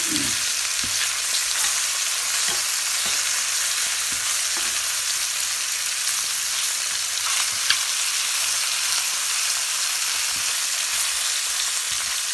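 Floured chicken pieces sizzling as they brown in a thin layer of oil in a skillet: a steady frying hiss with scattered small crackles, and one sharper pop about eight seconds in.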